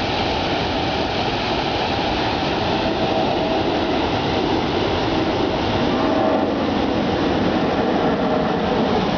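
Manavgat waterfall: river water pouring over the falls in a steady, loud rush.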